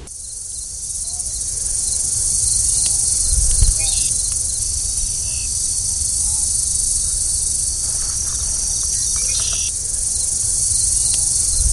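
A loud, steady, high-pitched chorus of insects, crickets or cicadas, shrilling without a break, over a low rumble that swells twice.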